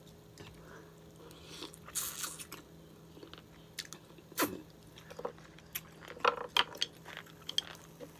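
A person eating a green-lipped mussel: wet chewing with a series of sharp mouth clicks and smacks, the loudest about halfway through.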